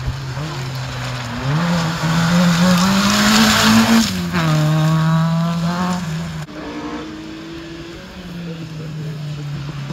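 Rally car at full throttle on a gravel stage, its engine note rising as it approaches and passing close by with a rush of gravel and tyre noise. About four seconds in, the note drops and falls away as the car goes past.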